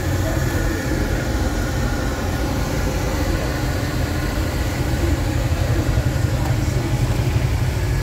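Steady low rumble of a small packaged steam boiler's forced-draft burner firing, its blower running evenly without change.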